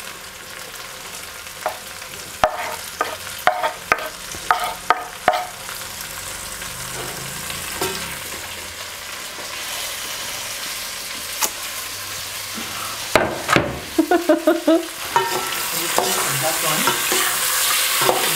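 Sliced tomatoes scraped with a metal spoon into a pot of frying omena (Lake Victoria sardines) and onions, with a run of sharp spoon clinks and taps. The frying sizzle grows louder through the rest, with another quick cluster of spoon clinks and scrapes against the pot about three quarters of the way through.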